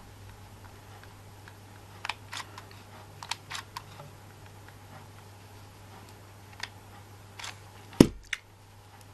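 Small scattered clicks from handling a cordless hot glue gun and ribbons, then one sharp knock about eight seconds in as the glue gun is set down on the table, with a lighter click just after.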